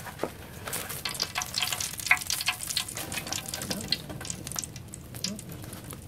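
Cooking oil in a frying pan on the stove, with a dense run of small crackles and pops that is busiest from about one to five seconds in.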